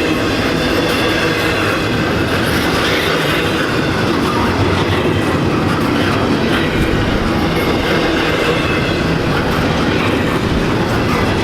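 Cars of a freight intermodal train rolling past: a steady loud rumble and clatter of steel wheels on the rails, with faint high wheel squeal.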